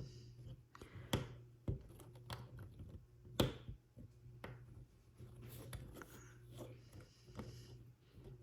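Small plastic parts of a snap-together toy car being handled and pressed together: scattered light clicks and rustling, the sharpest click about three and a half seconds in.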